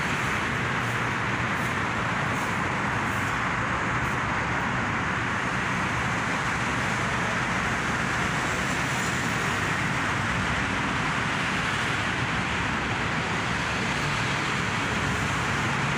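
Steady road traffic noise, an even wash of sound with no distinct events standing out.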